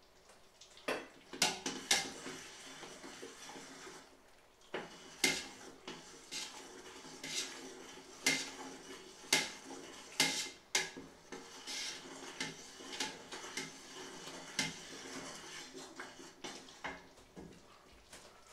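A metal utensil clinking and scraping against the inside of a large stainless steel pot, about one clink a second with a short pause near the start.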